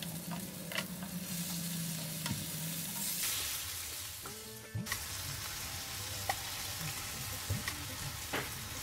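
Basa fish fillets sizzling steadily in butter and olive oil in a grill pan, with scattered light clicks from silicone-tipped tongs touching the pan as the pieces are turned.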